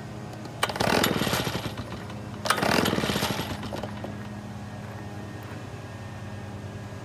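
Two pulls on the recoil starter of an ECHO two-stroke backpack leaf blower: two quick cranking bursts of rapid ticks, each about a second long and under two seconds apart, with the engine not catching. A steady low hum runs underneath.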